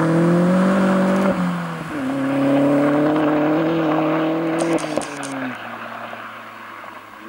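Vauxhall Astra VXR's turbocharged 2.0 four-cylinder (Z20LEH), breathing through an open cone filter and a Piper 3-inch cat-back exhaust, pulling hard away with the engine note rising. There is an upshift about a second and a half in, then it pulls again. Around five seconds in a quick crackle of pops comes as the revs drop, and the car fades into the distance.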